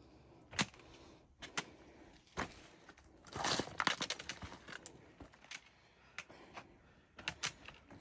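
Footfalls on a rocky mountain trail: irregular sharp clicks and scuffs of boots, or trekking-pole tips, striking rock, with a busier run of steps about three and a half seconds in.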